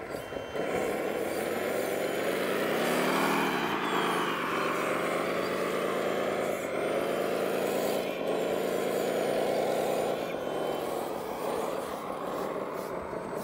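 Radio-controlled model wheel loader running, a steady engine-like drone that rises in pitch about three seconds in, falls back, then holds with a few small dips as it works.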